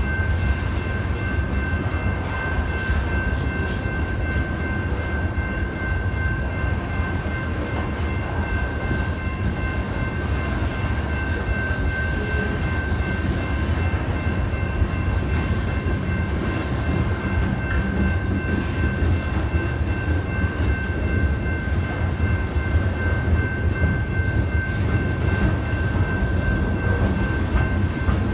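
Freight train rolling past: a steady heavy rumble of wheels and cars, with a steady high whine over it.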